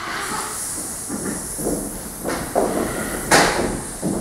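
A large cloth sheet handled by several people on a stage: soft rustling and shuffling, with one sharp snap about three seconds in, over a steady hiss.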